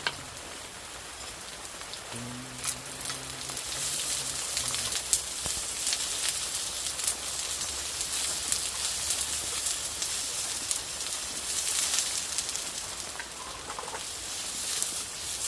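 Steady rain falling, heard as a continuous hiss full of small drop hits. A faint low tone sounds briefly between about two and five seconds in.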